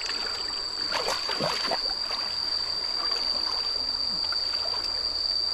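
Hands sloshing and splashing through shallow muddy water while groping for fish, most busily about a second in. A steady high-pitched whine runs underneath.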